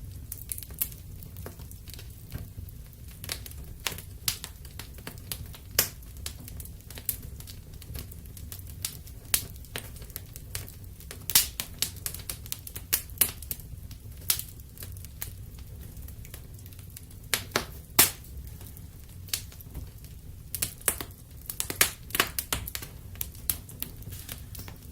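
Wood fire crackling: irregular sharp snaps and pops, a few much louder, over a steady low rumble of the burning.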